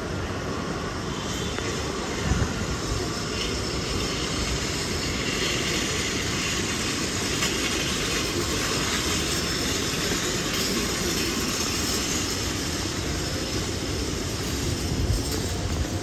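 Steady city-street background noise: a low rumble of traffic and the hum of the street. There is a brief low thump about two seconds in and another near the end.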